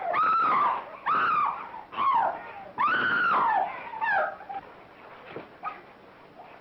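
A run of about five shrill, rising-and-falling cries, each under a second, that die away after about four and a half seconds. They could come from a screaming woman or a yowling cat.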